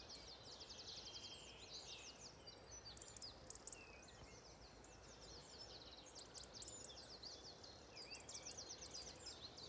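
Faint dawn chorus: several songbirds singing at once, with many quick, high chirps and trills overlapping throughout.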